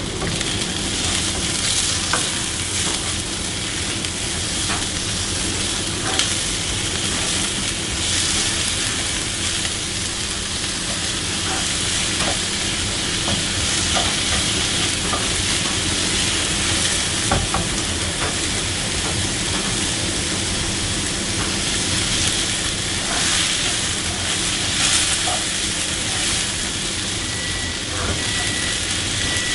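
Sliced onions and blocks of frozen garlic-ginger paste sizzling steadily in a little oil in a nonstick frying pan, stirred with a spoon that scrapes and clicks against the pan now and then.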